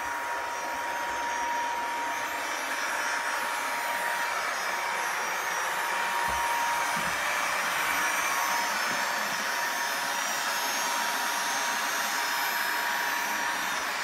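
Robot vacuum cleaner running: its motor makes a steady whirring hiss with a steady high tone.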